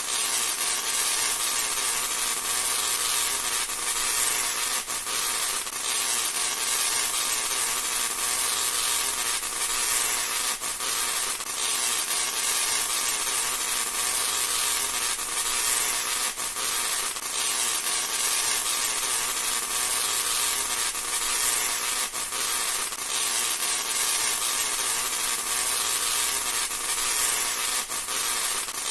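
Tesla coil spark discharge: a continuous crackling electrical hiss, with sharper snaps at irregular intervals.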